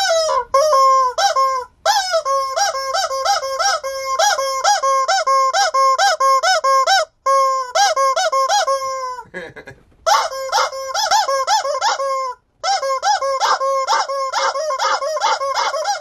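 Yellow rubber chicken squeeze toy squawking over and over in short, quick honks, about four a second, with a few brief breaks.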